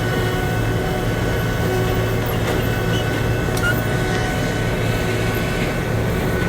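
John Deere combine running steadily while shelling corn: a constant deep engine and threshing drone with a thin steady whine above it.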